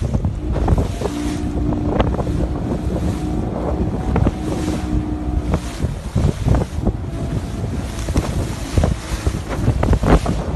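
Small wooden open drift-net fishing boat running through a choppy sea, with waves slapping against the hull and spray splashing, under heavy wind buffeting the microphone. A steady hum runs through the first half.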